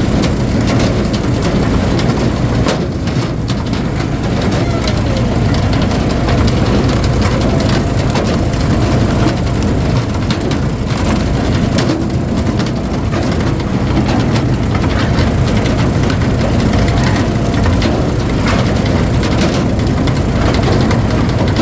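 Engine-driven hydraulic firewood splitter running steadily under load, with cracks and knocks of wood being split.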